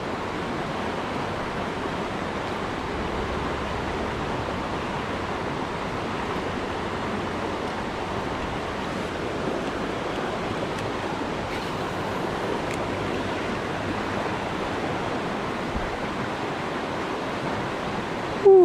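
Steady rushing of a shallow, rocky creek flowing over riffles close by. There is one brief louder sound right at the end.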